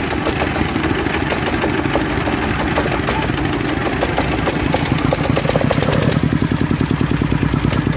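Jiangdong ZH1115 single-cylinder, four-stroke direct-injection diesel running at idle, with clattering injection ticks. Its firing beat is loose at first, then becomes an even, distinct pulse about five seconds in. The crew puts the rough running down to air in the fuel ('masuk angin') while the fuel line is being worked on.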